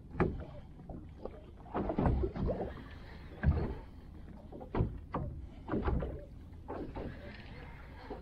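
Water slapping and lapping against a small boat's hull, with irregular knocks as a fishing rod and tackle work against the gunwale.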